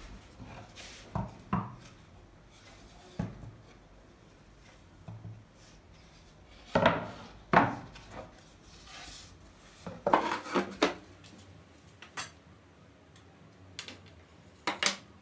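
Wooden boards being handled and set down on a wooden workbench: scattered knocks and clunks of wood and MDF on wood, with a loud pair about seven seconds in and a quick cluster about ten seconds in.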